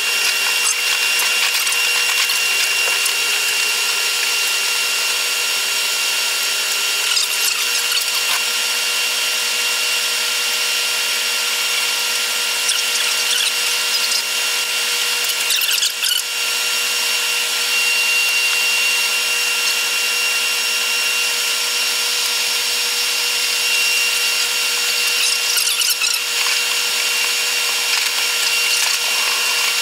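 Taiwan Railway EMU100 electric train running, its onboard noise played back at eight times speed, so it comes out as a steady high-pitched whir with several fixed tones over a hiss. A few brief crackly patches break through it, about a third and two-thirds of the way in and near the end.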